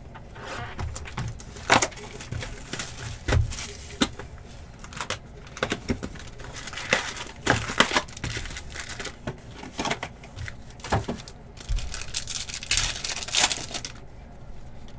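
Foil wrappers of Panini Phoenix football card packs crinkling and rustling as packs are pulled from the box and handled, with many sharp crackles. The loudest crackling and tearing comes near the end, as a pack is ripped open.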